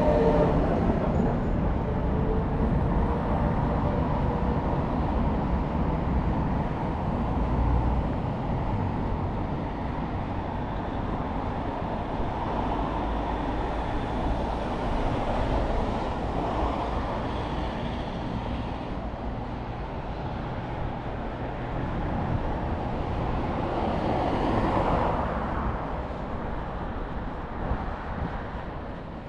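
Steady city traffic noise, vehicles passing with a low rumble and swelling a little as some go by. A rail vehicle's faint whining tones fade out in the first couple of seconds.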